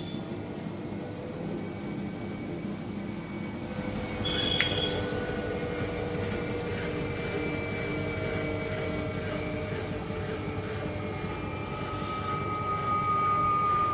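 IFB front-load washing machine in its high-speed spin, the drum and motor running with a steady hum and whine whose tones drift slowly in pitch. It spins without the knocking that a loose motor wire had caused. About four seconds in comes a click with a short high tone.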